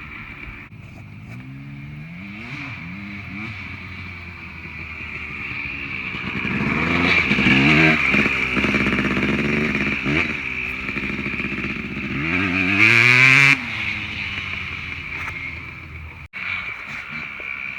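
Two-stroke dirt bike engine revving up and down several times, with the hardest rev about thirteen seconds in.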